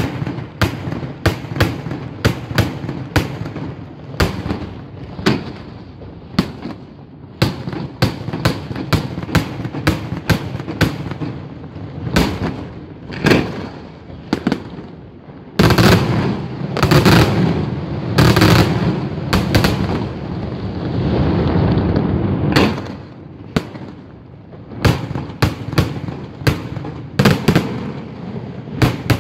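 Daytime aerial fireworks: a rapid series of sharp bangs from shells bursting overhead. About halfway through they thicken into several seconds of dense, continuous bangs and crackling, then thin out to separate bangs again.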